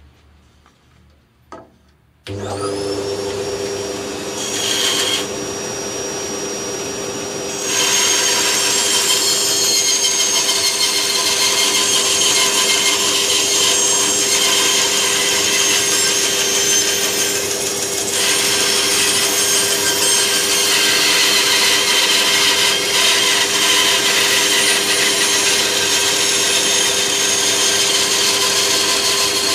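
A benchtop band saw started about two seconds in after a single click, its motor and wheels running up to speed with a rising whine, then settling into a steady hum. From about eight seconds on its freshly fitted 10 mm blade cuts a curve through a wooden block, a continuous sawing over the machine's hum.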